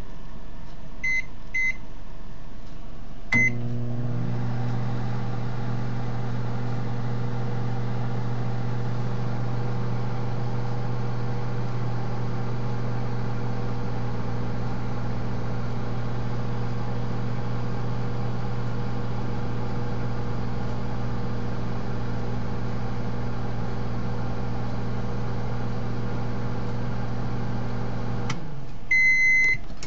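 Microwave oven: two keypad beeps and a start beep, then the oven running with a steady hum for about 25 seconds. It cuts off near the end, beeps to signal it has finished, and a sharp click follows right at the end.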